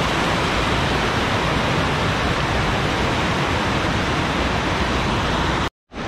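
Rushing water of a rocky river pouring through small cascades and rapids over boulders, a steady loud hiss. It cuts out abruptly for a moment near the end, then comes back.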